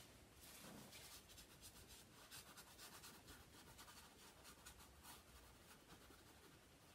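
Faint scratching and swishing of a paintbrush stroked across a canvas, in short repeated strokes.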